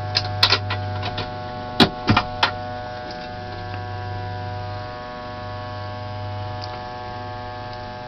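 Steady electrical hum from home-built solar power electronics, with a stack of fainter steady higher-pitched tones above it. A few sharp clicks come in the first two and a half seconds.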